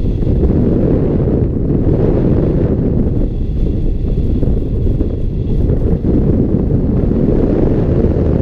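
Airflow buffeting the microphone of a camera mounted on a hang glider's wing in flight: a steady, loud, low rushing wind noise.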